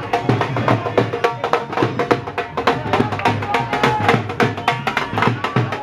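Drumming music with quick, steady beats, and some pitched sounds over the rhythm.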